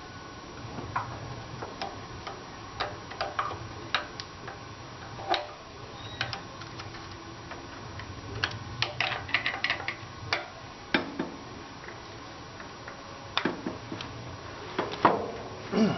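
Hand tools and small metal parts clicking and clinking irregularly while the carburetor and choke cable are taken off a Case 222 garden tractor engine. There is a quick run of clicks partway through and a few heavier knocks later, over a steady low hum.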